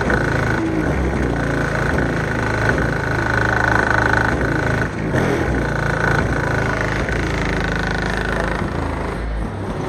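Loud, heavy bass from a rap track played through two 18-inch car-audio subwoofers, pulsing with the beat, with a steady high tone above it that fades out about eight and a half seconds in.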